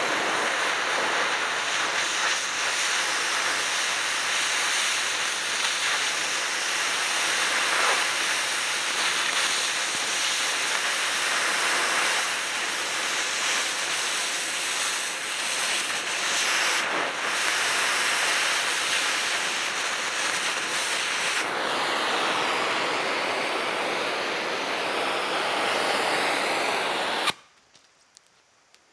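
Oxy-fuel cutting torch hissing steadily as it blows through a seized ball-joint nut and cotter pin on a steering knuckle; the hiss cuts off suddenly near the end.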